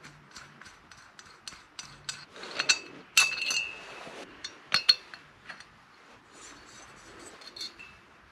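Metal clicks and clinks of a valve spring compressor working on a small engine's cylinder head as the valve springs, retainers and keepers are taken out. The loudest is a sharp clink about three seconds in that rings briefly, with two more sharp clinks near five seconds.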